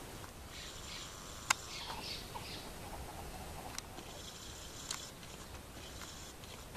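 Young mantled howler monkey giving two soft, raspy bouts of practice howling, a thin, breathy imitation of an adult howl, with a few sharp clicks in between.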